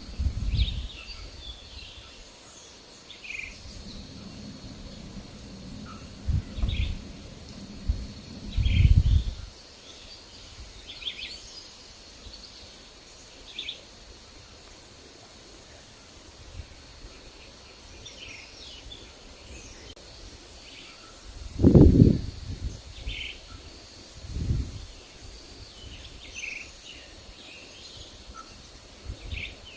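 Forest birds chirping in short, scattered calls over a faint steady insect-like hum. Wind buffets the microphone in several low rumbling gusts, the strongest about two-thirds of the way through.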